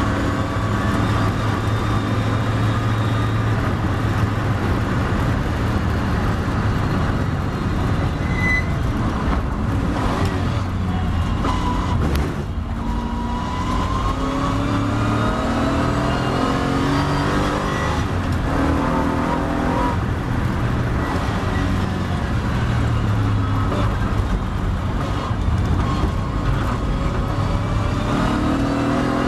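A Triumph TR7 race car's engine heard from on board at speed, with road noise. About ten seconds in, the engine note drops as the car brakes hard and shifts down for a corner, then it rises again as the car accelerates back up through the gears.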